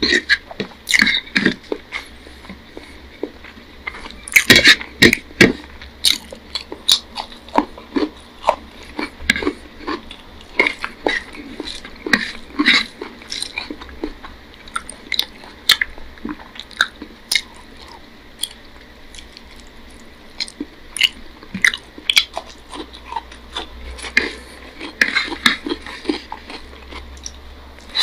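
Close-miked chewing and lip-smacking of rice and curry eaten by hand, in short wet clicks and smacks several times a second, with wet squishes of fingers mixing rice and curry on the plate.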